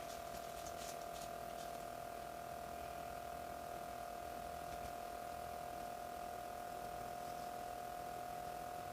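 Quiet room tone under a steady, faint high-pitched electrical whine, with a few faint light ticks in the first second or two.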